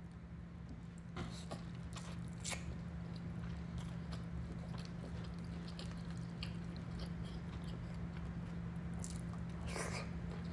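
Close-miked chewing of seafood meat, with scattered wet mouth clicks and smacks, over a steady low hum.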